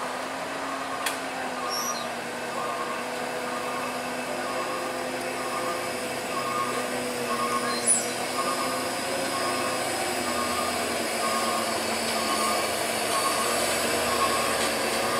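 Heavy diesel truck engines labouring up a steep hairpin climb: a steady low drone that grows louder toward the end as the trucks approach. A faint high tone pulses about twice a second throughout.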